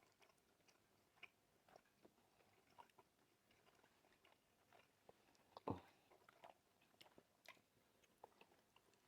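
Faint chewing and soft wet mouth clicks at a close microphone, in scattered irregular ticks, with one sharper click about halfway through.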